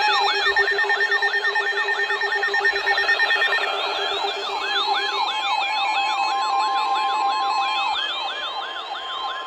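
Weather radio alert siren sounding for an incoming warning: a rapid rising-and-falling wail, about three sweeps a second, with a short break near the middle. A steady alert tone joins about seven seconds in.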